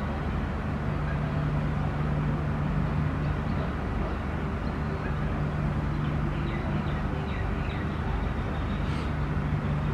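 A steady low mechanical hum with a constant low tone, joined by faint high chirps through the middle and a light click near the end.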